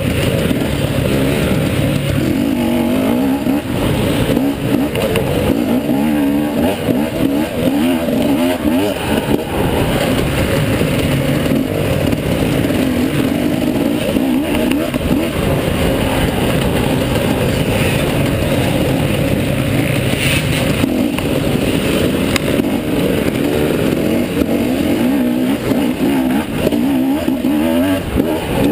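Off-road dirt bike engine revving up and down continuously as it is ridden hard over a rough woodland track, heard close from a camera mounted on the bike.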